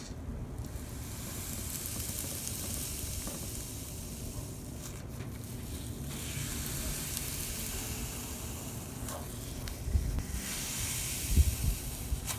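Slime being squeezed and stretched by hand, giving a fine high hiss that swells and fades in waves, with a few soft low bumps near the end.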